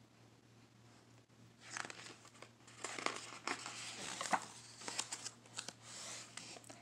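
A paper picture-book page turned by hand: a crinkly rustle of paper with small flicks and taps, starting about two seconds in and lasting several seconds.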